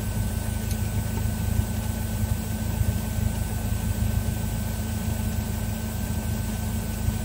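Cessna 172's engine running steadily at low power during taxi after landing, an even drone heard inside the cabin.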